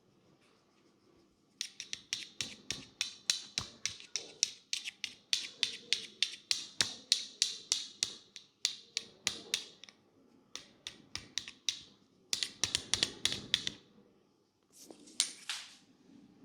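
Rapid run of sharp snapping clicks, about four a second, made by hands working the head during a head massage. A few scattered clicks follow, then a quick dense flurry of them, and a short rustle near the end.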